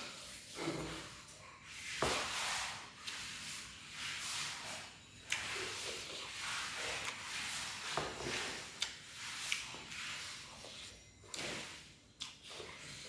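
A person chewing a mouthful of sticky rice and fried pork close to the microphone: irregular, noisy chewing sounds with a few short, sharp clicks.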